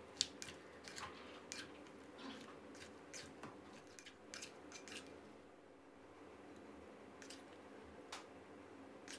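A spoon clicking and scraping against a clay mortar while tossing a moist salad of corn, long beans and tomato: a run of faint light clicks through the first five seconds, then only a few scattered ones.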